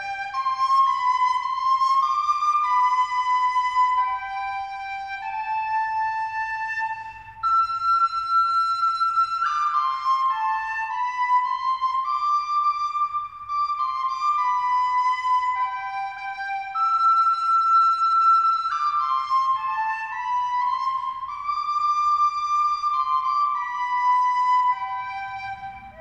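Music: a single melody on a wind instrument, moving in stepping notes, with a phrase that starts on a held high note and repeats twice.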